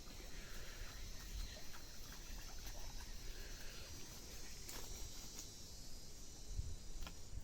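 Quiet lakeside ambience: faint steady chirring of insects, with low rumble from wind on the microphone and a few faint clicks.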